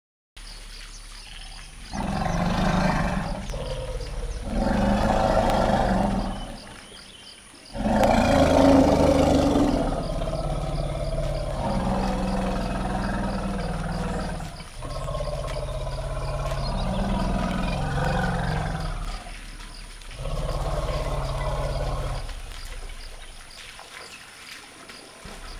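Two African forest elephant females exchanging greeting rumbles: a run of deep calls, some several seconds long, with the pitch rising and falling. The loudest call comes about eight seconds in, and a quieter rumble follows near the end.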